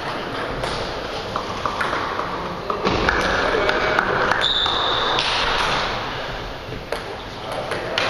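Table tennis balls ticking now and then against tables and bats in a large hall, over a steady background of room noise and murmur. A brief high squeak sounds a little after four seconds in.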